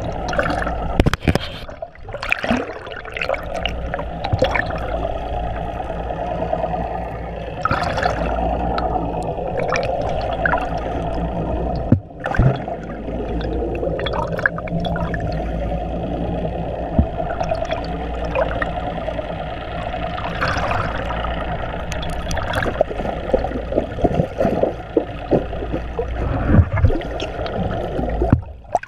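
Muffled underwater sound through a GoPro Hero 3+ waterproof housing: water rushing and gurgling over a steady low rumble, with scattered knocks and clicks.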